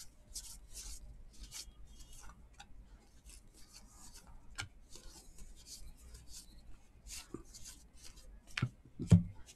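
A stack of 2019 Topps Archives baseball cards being flipped through by hand, each card sliding off the next: a run of short papery swishes, about two a second. Near the end come two knocks, the second the loudest, as the stack is tapped square.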